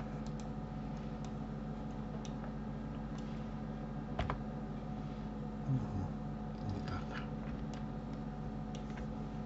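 Steady low hum with a few faint computer mouse clicks, the sharpest about four seconds in.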